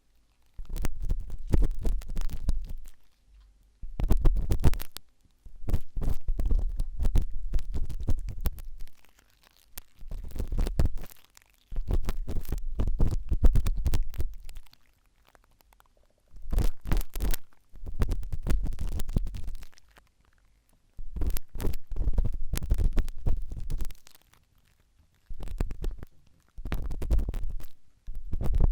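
Sharp toothpick scratching and scraping at an ear close to the microphone, in repeated bursts of crackly scrapes one to three seconds long with short pauses between, and a low rumble under each burst.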